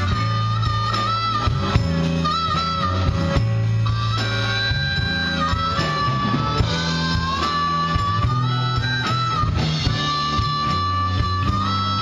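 Live blues-rock band playing an instrumental break: a harmonica takes the lead with held, bent notes over electric guitar, bass and drums.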